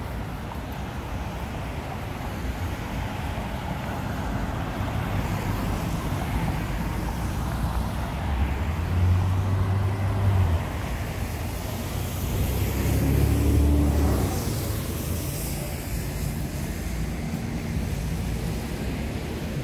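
Road traffic passing on a wet street: cars and a city bus driving by with engine rumble and tyre noise, swelling with two louder passes about nine and thirteen seconds in.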